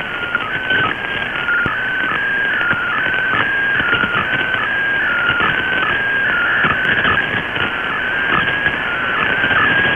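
Shortwave digital-mode picture transmission (MFSK) heard through a communications receiver in AM mode: a warbling tone that hops quickly between pitches in a narrow band, over steady shortwave static.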